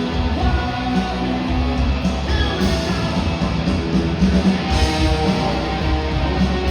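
Rock band playing loudly: a guitar-led instrumental passage with no singing.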